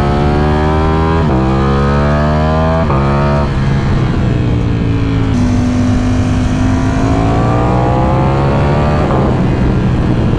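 Ducati Streetfighter V4 Lamborghini's V4 engine through a Termignoni titanium exhaust, accelerating hard. Its pitch climbs and drops at each quick upshift, three in the first few seconds. It then eases off to a lower, steadier note and climbs again to another shift near the end.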